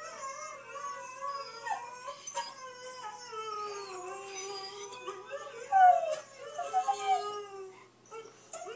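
Siberian husky howling and whining in long, wavering notes that slide up and down, mixed with other huskies' howls played back from a video. The loudest cry comes about six seconds in.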